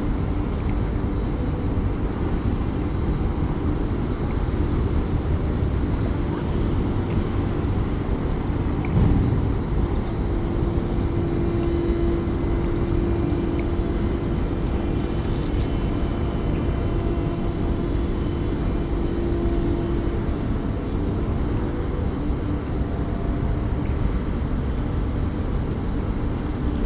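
Cement factory machinery running: a dense, steady rumble with a humming tone that grows stronger for several seconds in the middle. A low thump comes about nine seconds in, and a brief hiss around fifteen seconds.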